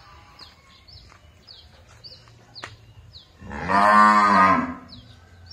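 Cattle mooing: one long call of about a second and a half, rising and then falling in pitch, a little past the middle. Short, high, falling chirps repeat about twice a second throughout, over a low steady hum.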